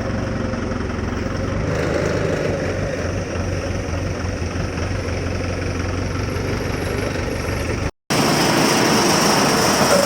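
Cassava grinding machine running steadily, with a low hum. About eight seconds in the sound cuts out for a moment and resumes as a hissier, higher-pitched running noise.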